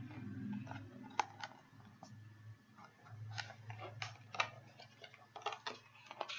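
Pages of a picture book being handled and turned: a scattered series of sharp clicks and taps, over a low steady hum.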